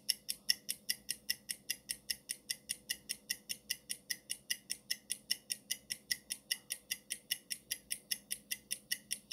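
Countdown-timer ticking sound effect: rapid, even clock-like ticks, about five a second, over a faint steady hum.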